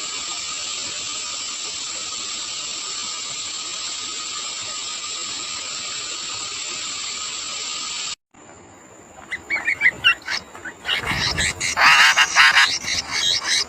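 A steady hiss that cuts off abruptly about eight seconds in. Then sooty-headed bulbul chicks chirp and beg at the nest, with a loud rustling burst near the end followed by rapid, high begging calls.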